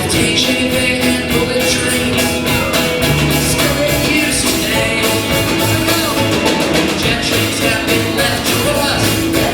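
Live rock band with guitar, keyboard, bass, drums and violin playing a song at a steady beat, with singing.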